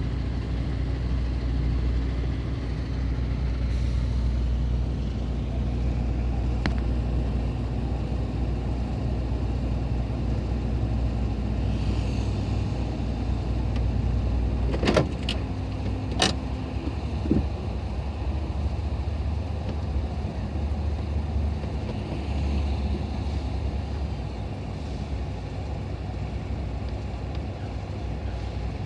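Vehicle engines idling in stopped highway traffic, a steady low rumble. About halfway through come a few sharp knocks, and the deepest part of the hum drops away at about the same time.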